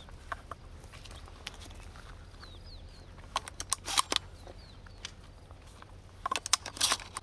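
Outdoor field sound: a few faint, short bird chirps, and two quick clusters of sharp clicks and rustles, about three and a half seconds in and again near the end.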